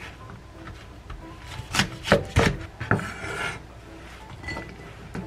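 Kitchen knife chopping small hot chili peppers on a wooden cutting board: a few sharp knocks of the blade on the board a little under two seconds in, then a short scrape as the chopped pieces are swept off the board.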